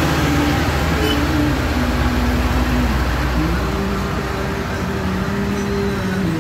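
Road traffic: vehicle engines running steadily, one engine's pitch rising about halfway through, over a steady hiss.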